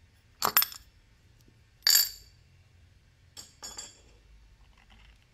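Loose metal parts clinking as the nut, washer and finned fan pulley of a scooter's CVT drive pulley come off the splined shaft and are set down. There is a short double clink about half a second in, a louder ringing clink at about two seconds, and lighter clicks around three and a half seconds.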